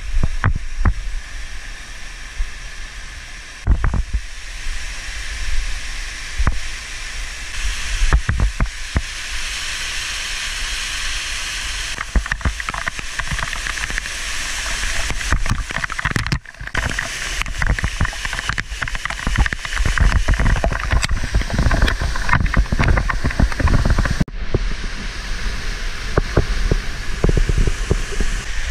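Waterfall pouring close by: a steady rush of falling water that grows louder from about halfway through, with many knocks and low rumbling bumps of wind and handling on the body-worn camera's microphone.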